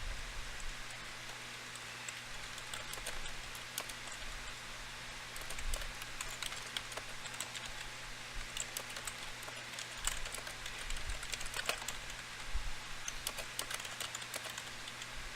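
Scattered light clicks and taps at an uneven pace, growing busier in the second half, over a low steady electrical hum.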